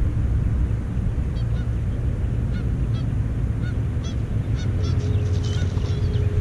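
Birds calling outdoors: short honk-like calls repeated every half second or so, with a burst of more varied calls near the end, over a steady low rumble.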